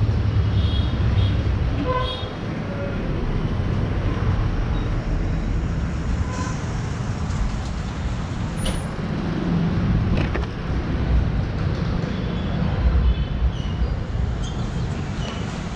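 Street traffic: vehicle engines running nearby with a steady low rumble, heaviest in the first couple of seconds.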